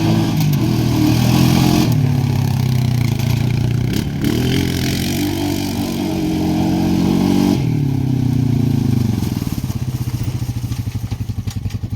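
Honda Foreman Rubicon ATV engine running, its pitch rising and falling twice as it is revved or driven, then settling to a steady idle about nine seconds in.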